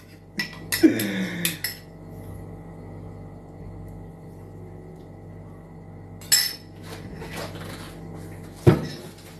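A spoon clinking and knocking against the cookware while the rice pudding is tasted: a quick cluster of clinks at the start, one ringing clink a little after halfway and a knock near the end, over a steady low hum.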